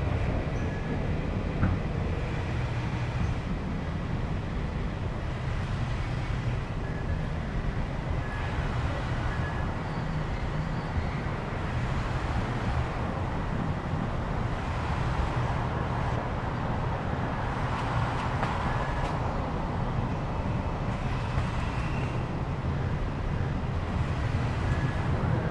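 Busy city road traffic: a steady, unbroken low rumble of engines and tyres, with faint short high tones coming and going above it.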